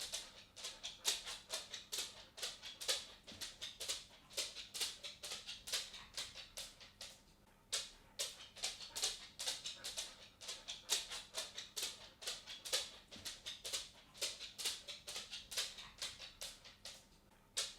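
A dog's claws clicking on a wooden floor as it walks: a quick, uneven patter of light ticks, with short pauses about seven seconds in and again near the end.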